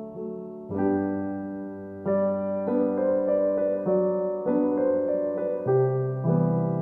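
Soft piano background music: slow, gentle chords and melody notes struck about every half second to second, each ringing and fading.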